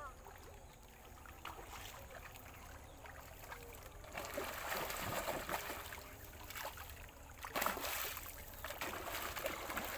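A hooked fish thrashing and splashing at the surface of a pond, in irregular bursts that start about four seconds in and are loudest near the end.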